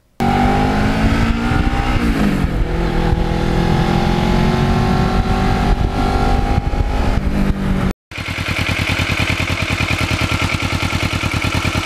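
Kawasaki Ninja 650R's parallel-twin engine running while riding, with wind noise; its pitch falls about two seconds in, then holds steady. About eight seconds in the sound cuts to the same engine idling with a steady, even beat.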